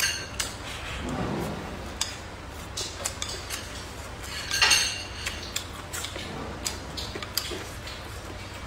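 Wooden chopsticks clicking and scraping against a ceramic bowl as fried rice is scooped, with a louder scrape about four and a half seconds in. Soft chewing sounds in between.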